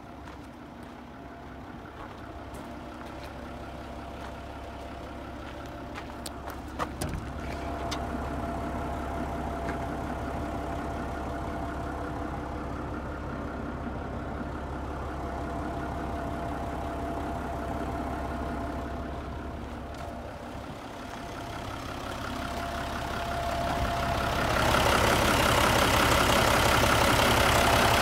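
Mitsubishi Aero Midi bus's 6D15 turbo inline-six diesel engine idling steadily, heard from under the chassis, with a steady whine over it. It grows clearly louder and brighter near the end as the microphone nears the engine and gearbox.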